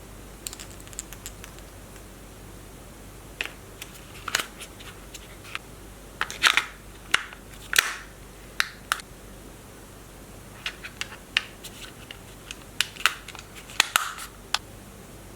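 Handling noise: irregular clicks, taps and short scratchy rustles, busiest about six to eight seconds in and again near the end.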